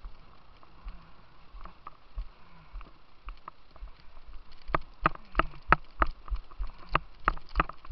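Quick, sharp knocks, about three a second, begin about halfway through: hurried footsteps on a concrete bank at a white-water course. Faint rushing water runs underneath.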